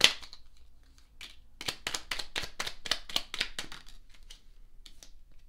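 Tarot deck being shuffled by hand: a quick run of papery card clicks and flutters for a few seconds, then a few single card snaps as cards are drawn.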